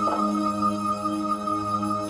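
Soft film score playing from a television's speakers: long held notes over a steady low drone.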